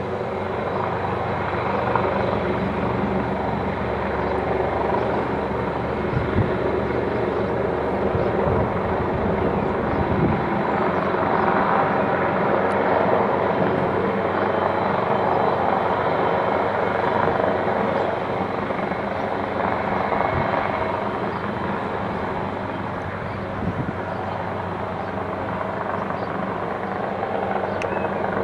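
AgustaWestland AW139 twin-turbine helicopter hovering low, its rotors and turbines running steadily.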